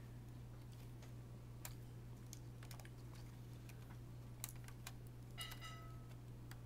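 Faint, scattered clicks and taps of plastic laptop parts being handled during the keyboard and speaker replacement, over a steady low hum, with a brief high chirp about five and a half seconds in.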